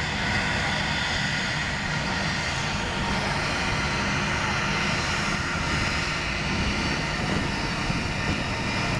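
Jet aircraft engines running steadily, a whine of several held tones over a constant rumble.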